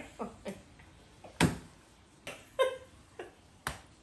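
Two women laughing hard in short, high-pitched squeals and breathless gasps, broken by two sharp smacks about a second and a half in and near the end.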